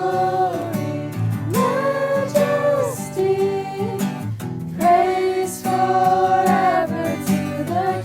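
A worship song: a singer holding long notes over strummed acoustic guitar.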